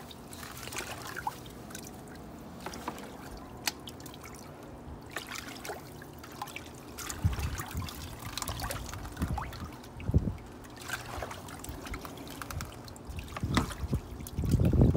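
Water trickling and splashing as a small hand net is swept through a shallow plastic tub pond to scoop out goldfish, with many small drips and splashes. A few low thumps come in the second half, the loudest near the end.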